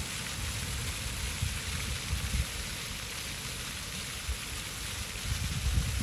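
Ground-level fountain jets spraying and splashing onto wet paving stones, a steady hiss. Irregular low rumbling runs underneath and swells near the end.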